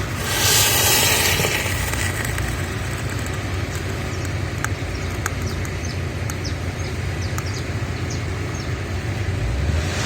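A loud rushing hiss lasting about a second, starting just after the beginning, over a steady low outdoor rumble. Scattered faint ticks and short high chirps follow.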